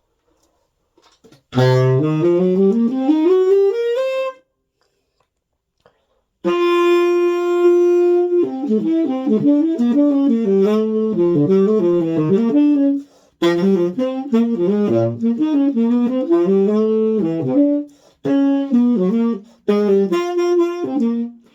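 Tenor saxophone played through a 3D-printed SYOS Smoky 7 mouthpiece. About a second and a half in, a run climbs upward and stops, followed by a pause. Then comes a long held note and quick phrases of fast notes separated by short breaks.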